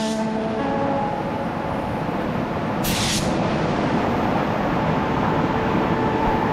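Steady loud rushing of the inflatable paint booth's air blowers, with a short burst of air hiss about three seconds in.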